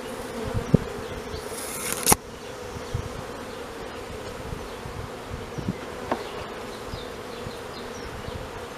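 Honeybees buzzing steadily in an open hive, a constant hum. About two seconds in, a short loud hiss cuts off sharply, and a few light clicks and knocks come from handling the hive.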